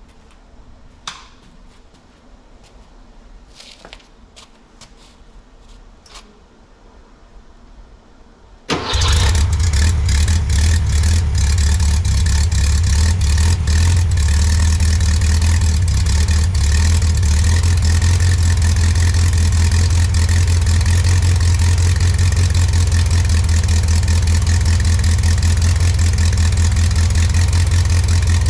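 A few faint clicks and knocks, then about nine seconds in the air-cooled flat-four engine from a 1968 VW Beetle fires up abruptly and runs steadily. It is the engine's first test run after a carburettor clean-out, new points and a valve adjustment.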